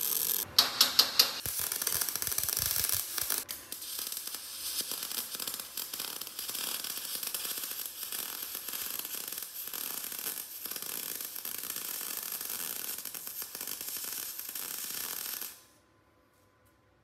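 Wire-feed (MIG) welder's arc crackling steadily as a flange is welded onto an exhaust pipe section, with a few sharp pops about a second in. The crackle cuts off suddenly near the end.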